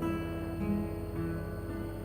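Acoustic guitar played alone, single notes plucked and left to ring, a new note struck every half second or so.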